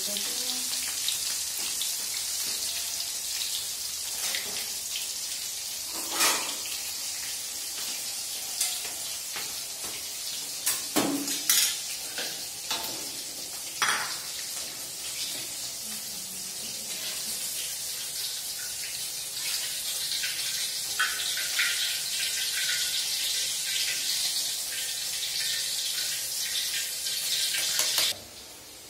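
Hot oil sizzling steadily in an aluminium wok as cubes of tofu deep-fry, with occasional sharp clanks of a metal spatula and wire strainer against the wok, several of them around the middle. The sizzle cuts off abruptly just before the end.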